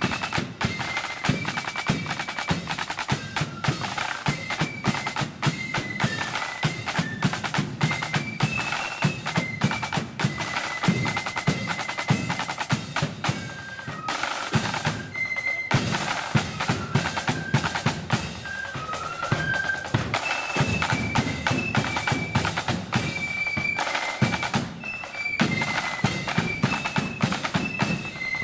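Marching flute band playing: flutes carry a high melody over rapid snare drum rolls, a bass drum beat and cymbal clashes.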